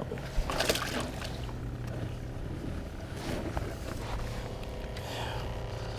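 Boat motor running with a steady low hum, with a few faint clicks over it.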